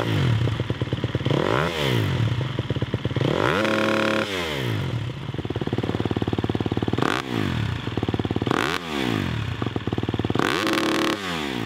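Four-stroke 250 cc motocross bike engine revving hard over and over, its pitch climbing and dropping steeply about six times.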